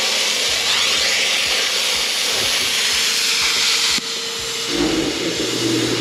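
Handheld plasma cutter cutting sheet steel: the arc and its air jet make a loud, steady hiss that stops abruptly about four seconds in. A lower, pulsing hum starts up about a second later.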